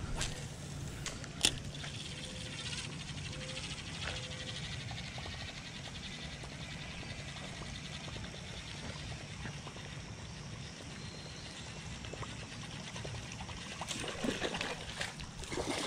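Spinning reel being cranked to retrieve a topwater lure, a steady fine whirr over a low outdoor hum. A sharp click about a second and a half in, and a few louder knocks and rustles near the end.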